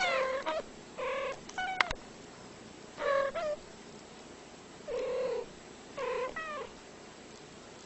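Domestic cat meowing: about six short meows with pauses between them, a longer gap near the middle.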